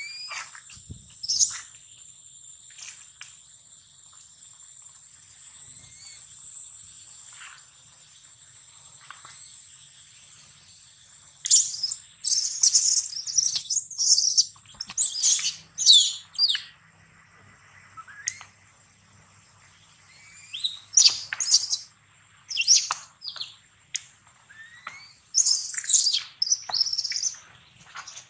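Infant monkey screaming in shrill, rapid bursts, in two bouts starting about 11 and 21 seconds in: distress calls. Before the first bout there is only a faint steady high tone and a few scattered chirps.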